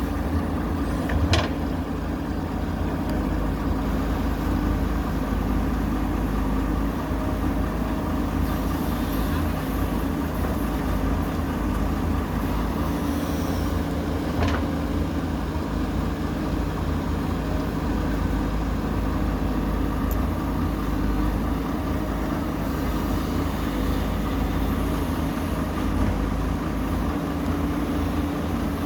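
Heavy diesel engine running steadily, with two brief sharp knocks, one about a second in and one about halfway through.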